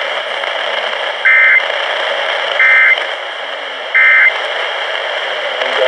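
Emergency Alert System end-of-message data tones: three short identical bursts of the two-tone digital warble, about 1.3 s apart, signalling the end of the alert. Steady AM radio static runs under them.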